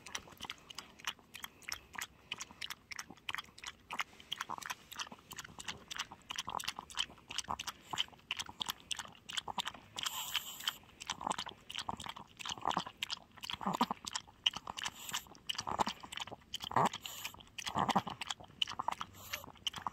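A dog eating soft, wet food from a plastic bowl: quick wet smacking and lapping clicks, about three a second, with a few louder, deeper smacks in the second half.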